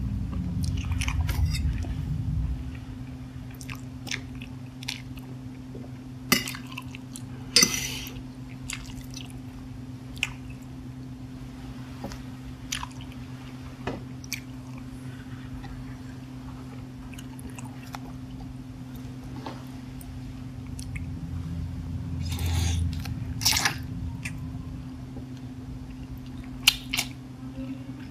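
Close-up eating sounds of spicy instant noodles: wet chewing with scattered short clicks from the mouth and fork, a few of them sharper, over a steady low hum.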